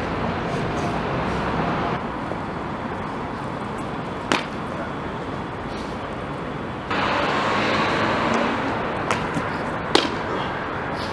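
Two sharp thuds of shoes landing on stone, about six seconds apart, from parkour precision jumps, over a steady background of city street traffic that grows louder about seven seconds in.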